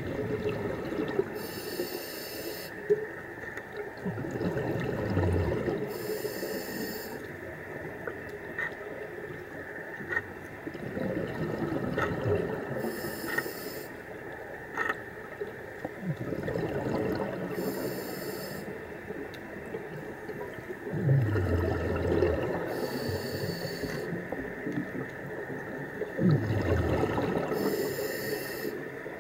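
Scuba diver breathing through a regulator underwater: a hissing inhale about every five seconds, six times in all, alternating with the low falling rumble of exhaled bubbles. A few faint clicks are scattered through it.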